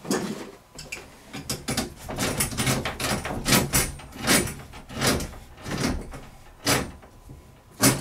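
A hand tool tightening the threaded inlet fitting on a water-heater descaler cartridge housing: a run of short, irregular strokes, about one or two a second.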